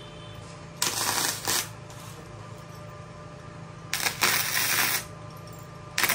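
MIG welding arc crackling in short bursts of about a second each, about a second in and again about four seconds in, with another just starting at the end, while laying a root weld on steel plates at about 40 amps. A low steady hum runs underneath.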